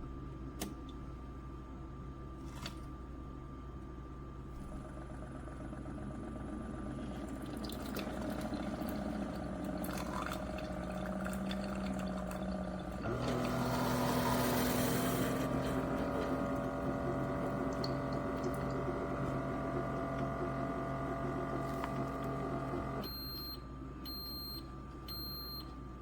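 Ninja Pod & Grounds PB051 single-serve coffee maker running plain water through on a cleaning brew: its pump hum and the hiss of hot water build up, surge loudest about halfway through, and stop suddenly about 23 seconds in. Three short high beeps follow as the cycle ends.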